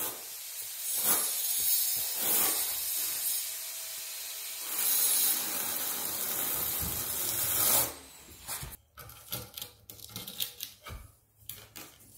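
Notched steel trowel scraping thinset mortar across the floor in long strokes for about eight seconds. After that come a few light taps and knocks as a floor tile is pressed into the mortar bed.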